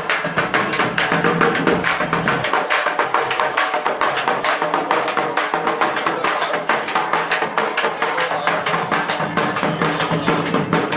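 Music with a fast, dense hand-drum rhythm, many sharp strikes a second, and no singing.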